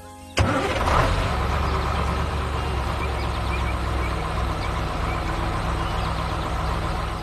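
Heavy truck engine sound effect: it starts abruptly with a sharp clank, runs steadily with a deep rumble and a hiss, then cuts off suddenly.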